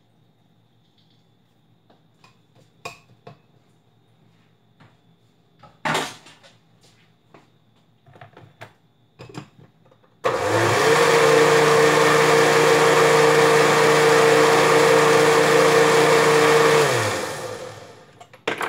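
Countertop blender motor switching on about ten seconds in, its whine rising quickly to a steady pitch as it blends a milky liquid mixture for about seven seconds, then winding down with falling pitch near the end. Before it starts there are light clinks and knocks of a spoon and lid at the glass blender jar.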